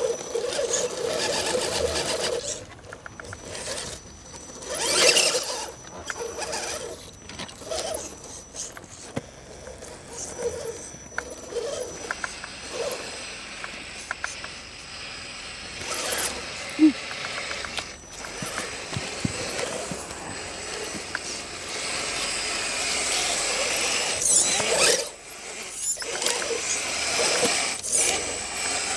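Electric motor and gearbox of a radio-controlled scale rock crawler whining in stop-start bursts as it is driven up bare rock.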